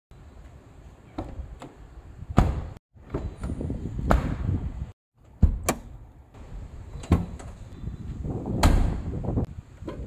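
Maruti Suzuki Alto K10 door handle clicking and the door shutting with a thud. After a cut, the floor-mounted fuel-lid release lever is pulled with sharp clicks and the fuel filler flap pops open. The sounds come as a series of separate knocks and clicks, two of them loud thuds.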